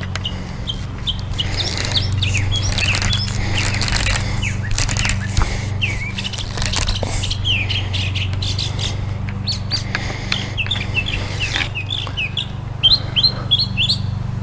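Small birds chirping repeatedly in short, quick notes, with a faster run of chirps near the end, over a steady low hum.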